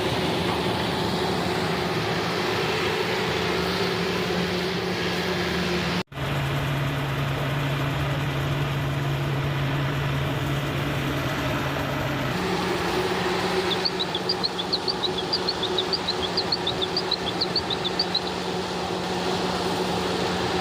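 Kubota rice combine harvester running with a steady engine hum. The sound cuts out abruptly for an instant about six seconds in. The hum then sits at a lower pitch until about twelve seconds in, when it returns to its earlier pitch. A run of short high chirps comes through between about fourteen and eighteen seconds in.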